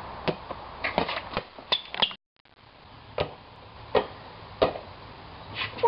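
Sharp irregular knocks and thuds of a rubber playground ball being thrown, striking, bouncing and caught, about one every half second or so. The sound cuts out briefly about two seconds in.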